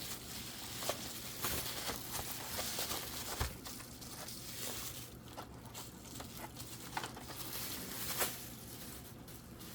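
Packaging being handled: soft rustling and crinkling with scattered light clicks and taps as the next boxed diecast car is taken out.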